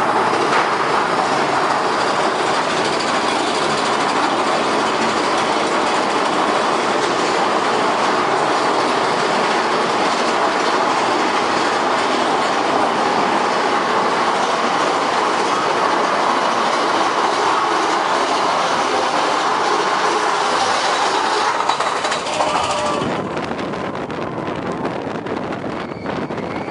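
Big Thunder Mountain Railroad mine-train roller coaster running on its track: a loud, steady rattle and rumble of the train cars, which drops in level and thins out about 23 seconds in.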